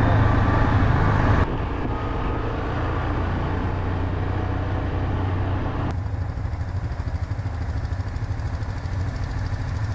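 ATV (quad bike) engine running steadily while riding along a dirt trail. The sound drops abruptly about a second and a half in and changes again near the middle.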